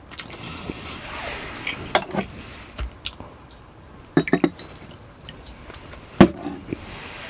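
Soju poured from a green glass bottle into a small glass shot glass, with a quick run of clinks during the pour and a single sharp knock about six seconds in.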